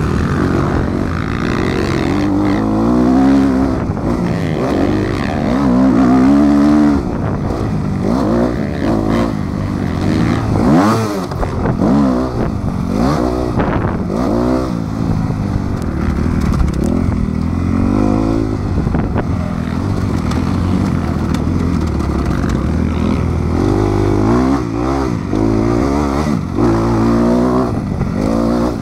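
Motocross bike engine heard from on the bike, revving up and dropping back again and again as the rider accelerates, shifts and slows for the corners.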